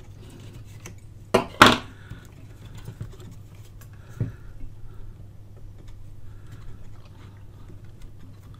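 Needle-nose pliers and hands working a can-type electrolytic capacitor loose on a radio's metal chassis: two sharp metallic clicks about a second and a half in, a smaller click about four seconds in, and light tapping and handling in between.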